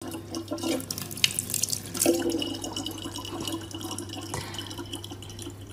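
Kitchen faucet running a thin stream of water into a plastic cup, a steady trickle with a low hum underneath.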